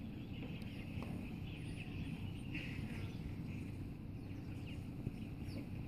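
Outdoor ambience: a steady low rumble with faint bird chirps and calls.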